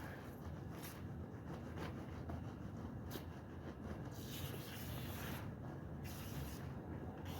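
Wet washing of a soapy woollen rug: hissing swishes about once a second over a low steady rumble.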